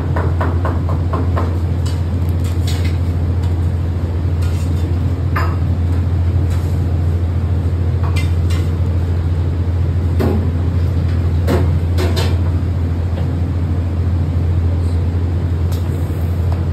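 Steady low hum of commercial kitchen equipment, with a quick run of light ticks in the first second and scattered clinks and knocks after.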